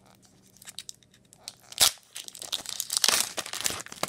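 Foil trading-card pack wrappers crinkling as hands pick through a pile of packs, with one sharp crackle a little under two seconds in and steady crinkling from about halfway on.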